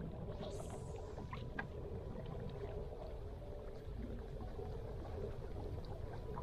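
Wind noise on the microphone over small waves lapping against a paddleboard, steady and low, with a few faint ticks.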